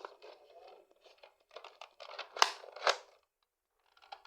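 Crinkling, rustling plastic as a toy gel-ball gun and its packaging are handled while it is being loaded, with two sharp snaps a little past halfway.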